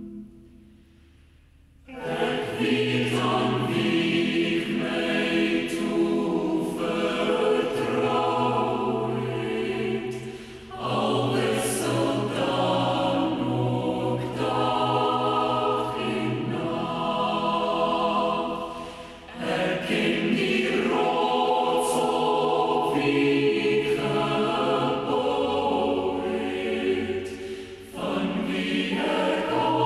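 Recorded choir music: after a short quiet gap, a choir starts singing about two seconds in and carries on in long phrases with brief breaks between them.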